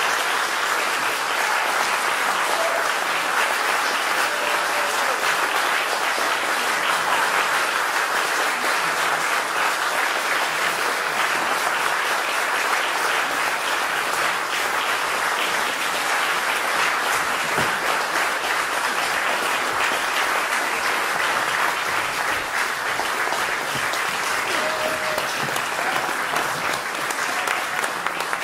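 A concert audience applauding: dense, steady clapping from many hands throughout, easing a little near the end.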